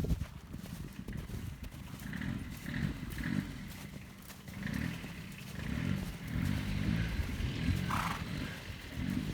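A horse moving around on a lunge line, its hoofbeats coming about once a second or faster, over a continuous low rumble from a tractor engine running.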